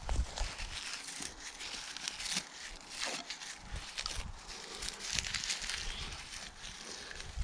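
Irregular rustling and crackling of dry leaves and twigs, with scattered sharp snaps.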